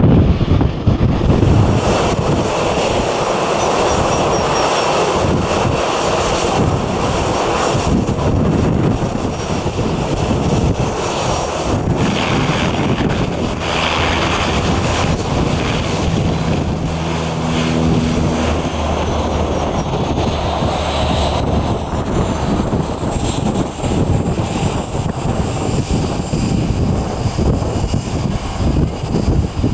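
Jet airliner engines running, with wind buffeting the microphone.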